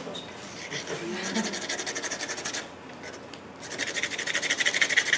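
Rapid back-and-forth hatching strokes of a dry drawing stick on paper, a scratchy rasp of many quick strokes a second. It comes in two runs, one starting about a second in and one through the last second and a half.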